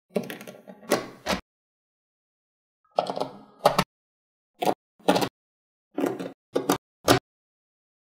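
Small magnetic balls clicking and clacking as rings of them are snapped together and pressed down on a table, in about eight short bursts of sharp clicks with silence between.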